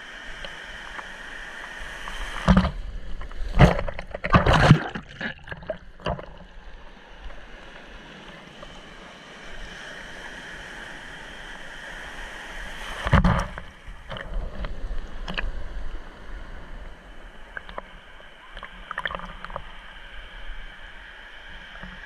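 Shallow sea surf washing around a camera held low in the water: a steady rush of breaking waves, with loud splashes and sloshing against the camera between about two and five seconds in, and again around thirteen seconds as a breaking wave reaches it.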